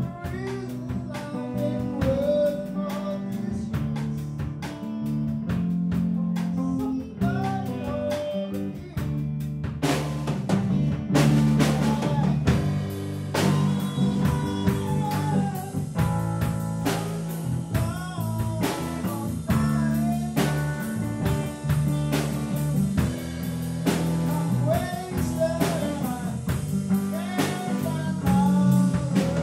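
Rock band playing live in a room: electric guitars, bass guitar and drum kit, with a lead guitar playing bent notes over the band. The drums get heavier about ten seconds in.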